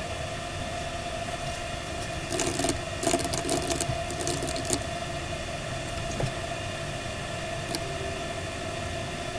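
Steady mechanical hum with several fixed whining tones, with a run of rustling and clicks from about two to five seconds in.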